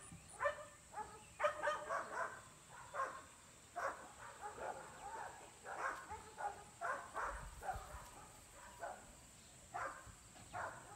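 Pyredoodle puppies barking and yipping: short, high barks repeated irregularly, about one every half second to a second.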